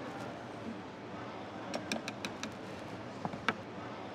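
Small knife clicking and tapping while scraping the seeds out of a split vanilla pod: a quick run of about five sharp clicks near the middle, then two more a second or so later, over faint steady room noise.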